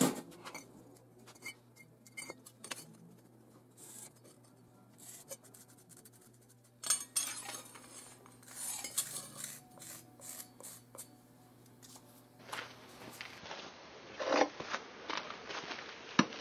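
Sporadic light clinks, taps and scrapes of a steel straightedge and marker against a brick lying on an anvil as lines are drawn, over a faint steady hum. Near the end, a few sharper knocks as a brick is set down on a steel plate.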